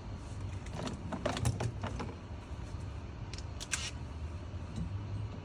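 Scattered light clicks and metal taps of hand tools working on a car's steering column, over a low steady hum.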